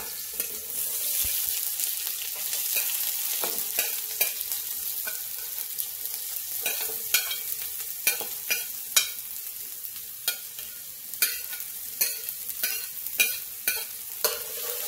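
Chopped scallions, onion, celery and wiri wiri pepper sizzling as they drop into hot oil in a pan. Irregular sharp clicks throughout as a metal spoon scrapes and knocks against the cutting board and pan.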